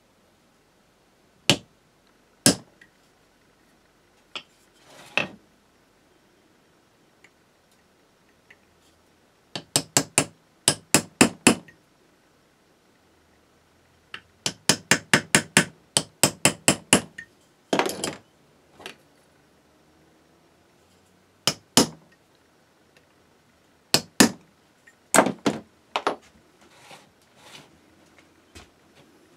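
Small hammer tapping a centre punch into a metal block held in a machine vise, marking hole positions for drilling. Single light taps alternate with quick runs of taps at about four a second, with fainter handling clatter near the end.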